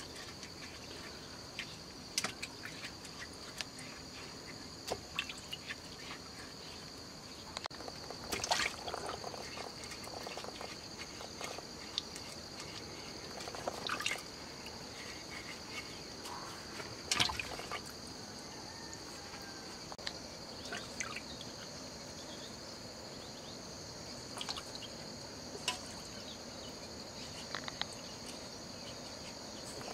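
Potatoes being washed by hand in a pot of water: irregular splashing and sloshing as hands rub the potatoes. A steady high-pitched insect drone continues behind it.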